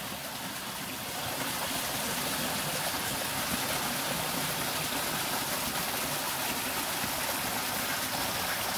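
Small waterfall splashing into a rock pool: a steady rush of falling water.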